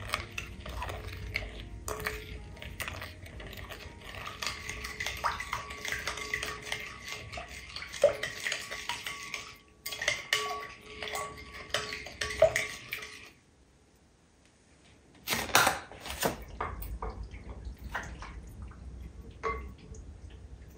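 Metal spoon stirring a liquid marinade in a glass bowl, clinking and scraping against the glass. The stirring stops about two-thirds of the way through, and after a short pause comes a brief louder rush of noise, then scattered light clinks.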